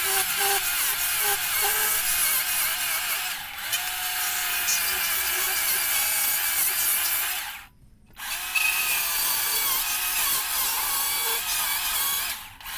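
Stihl battery-powered chainsaw plunge-cutting straight down into the end grain of a log, the electric motor's whine mixed with the chain chewing wood. The saw stops for about half a second around eight seconds in, then starts cutting again.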